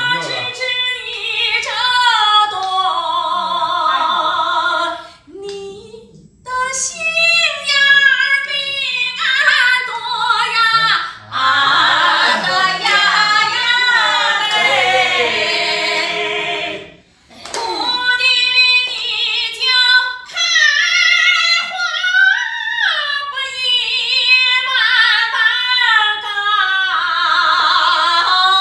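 A woman singing solo and unaccompanied, in long phrases with wavering held notes, pausing briefly for breath a few times.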